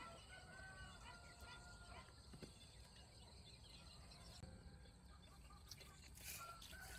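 Faint rice-field ambience with scattered high bird chirps. A thin, held whistle-like call sounds about a second and a half near the start and again near the end.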